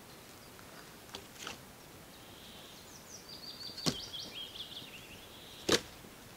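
A few sharp snaps and cracks of wood at a campfire being got going, the loudest near the end. Over them, about three seconds in, a songbird sings a quick run of high chirps that steps down in pitch.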